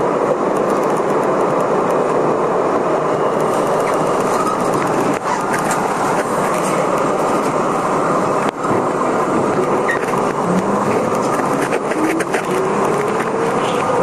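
R32 subway car making a steady loud noise while stopped, then, about ten seconds in, its traction motors begin a whine that rises steadily in pitch as the train accelerates away from the station. There are a couple of sharp clicks partway through.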